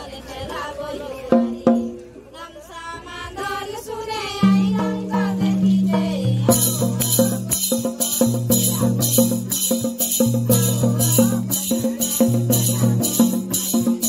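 Santhali folk dance music: voices at first, then from about four seconds a steady low madal drum beat, joined a couple of seconds later by metallic jingles struck about twice a second.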